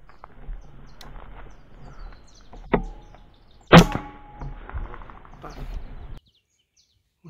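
Fox GR1600 air rifle firing: a loud, sharp crack followed by a brief metallic ringing, with a smaller metallic click about a second before it.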